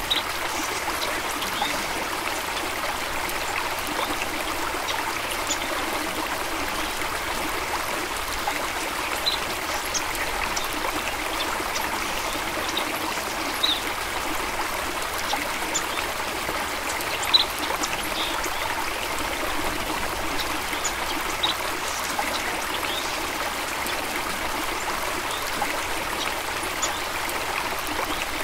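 A small stream flowing steadily over stones, with a continuous trickling and splashing and occasional brighter droplet splashes.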